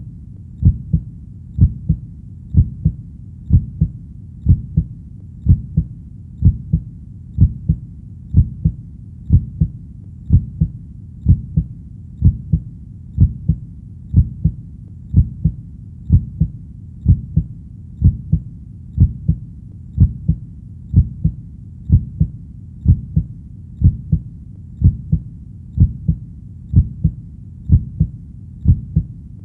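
Heartbeat: a steady, even rhythm of low double thumps (lub-dub), about one beat a second, over a faint constant low hum.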